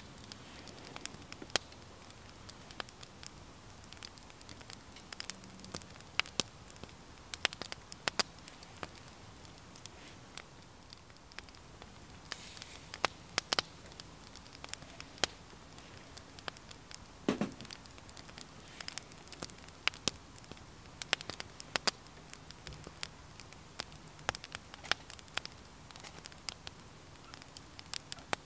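Small wood fire in a twig stove crackling, with irregular sharp pops and snaps over a low steady hiss.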